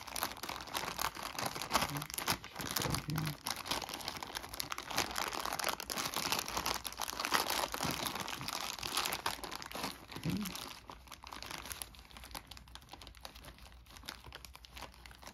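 Plastic bag of miniature figures crinkling and rustling as it is handled and opened. The crackling is dense at first and thins out over the last few seconds.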